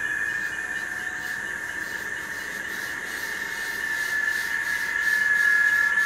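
A steady high-pitched drone from a chorus of calling insects, growing louder near the end.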